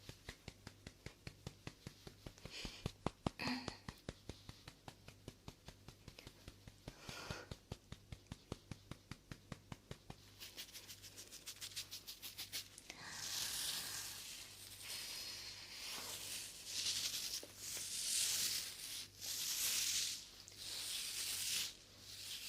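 ASMR trigger sounds close to the microphone: quick sharp tapping clicks, about five a second, that speed up after about ten seconds. After that come repeated bursts of scratchy rubbing.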